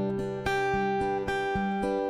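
Background music: an acoustic guitar playing, its notes plucked in a steady rhythm.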